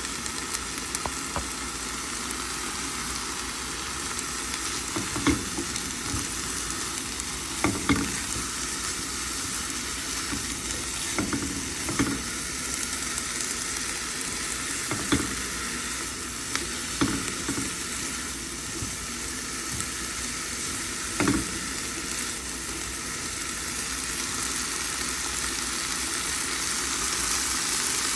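Green beans and white beech mushrooms sizzling in butter in a frying pan: a steady hiss, with now and then the knock and scrape of a spatula against the pan as they are stirred. The sizzle grows a little louder near the end.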